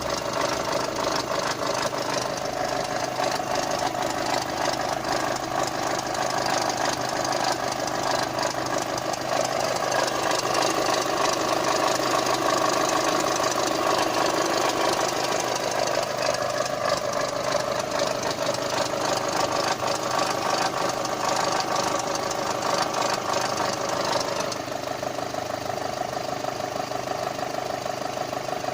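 Volkswagen Golf Mk5 GTI's 2.0 TFSI turbocharged four-cylinder engine idling steadily with a strange noise: a fast, dense ticking over the engine's hum. About 24 seconds in, the higher-pitched part of the noise eases off.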